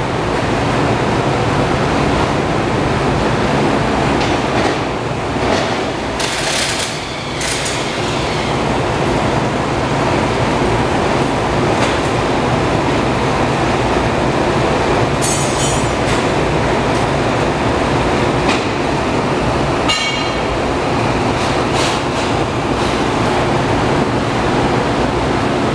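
Front rim of a 2005 Harley-Davidson FLHTCUI Electra Glide Ultra Classic, with its brake disc, spinning fast on a spin-test stand: a steady rolling rumble, with a few short clicks over it.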